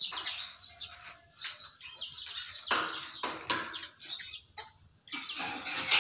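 Birds calling in short irregular bursts.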